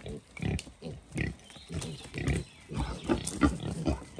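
Wild boar grunting over and over in short grunts, about two a second at first and then faster and closer together in the second half: the excited grunting of a boar pursuing a sow in heat.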